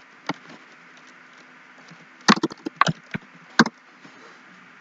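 Computer keyboard keystrokes: a single clack near the start, then a short run of about five scattered clacks between two and four seconds in, over a faint steady hum.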